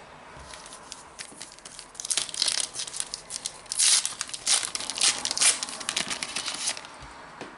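Panini Adrenalyn XL trading card packet wrapper being torn open and crinkled: a run of irregular crackling that starts about two seconds in and stops near seven seconds.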